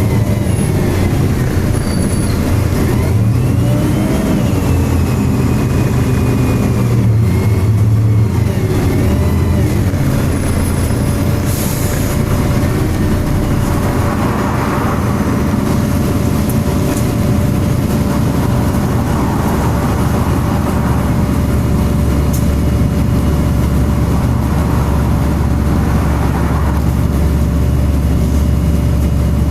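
MAN bus's diesel engine running under way, heard from inside the bus, with its engine cooling fan whirring. The low engine hum is steady; a few brief rising-and-falling whines come early, and a steady higher tone sets in about twelve seconds in.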